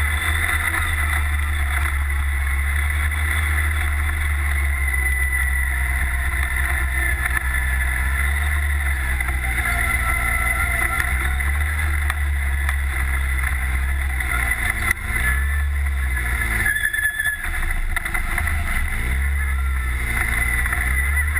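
Off-road buggy's engine heard from on board while driving a dirt track, running steadily with its pitch rising and falling as the throttle is opened and eased. It drops away briefly about three-quarters of the way through.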